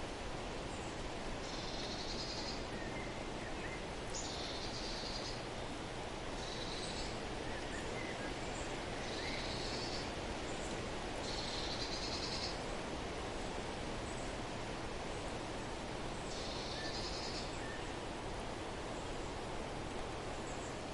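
A small bird calling: a high call about a second long, repeated every two to three seconds, with a few fainter, lower chirps between. A steady outdoor background hiss runs under it.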